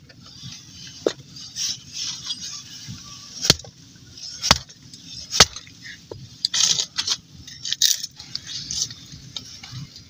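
Small objects being handled: irregular sharp clicks, clinks and knocks, with scraping and rustling between them; the strongest knocks come about three and a half, four and a half and five and a half seconds in.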